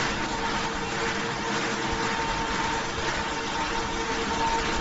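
Machinery of a fried snack (Bugles) production line running: a steady mechanical noise with a constant hum.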